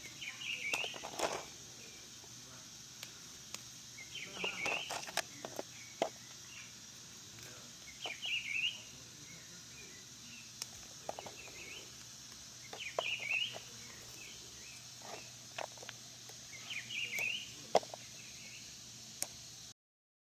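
A songbird repeating the same short chirping phrase five times, about every four seconds, over a steady high hiss. Scattered sharp clicks and knocks fall between the phrases.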